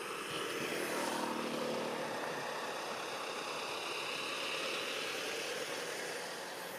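A steady engine drone, a little louder about a second in.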